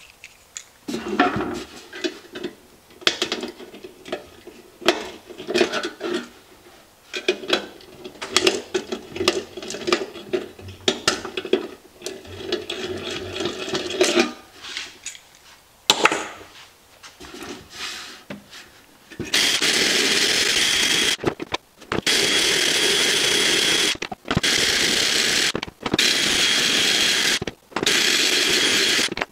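Steel ammo can being handled, with irregular metallic clatter and scraping. About two-thirds of the way in, a cordless drill spinning a wire wheel starts grinding against the painted sheet steel to strip paint down to bare metal, running in loud bursts with brief stops between trigger pulls.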